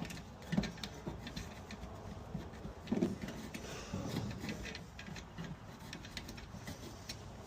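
Scattered light clicks and rattles of wires and small parts being handled, with two louder thumps, about half a second and three seconds in.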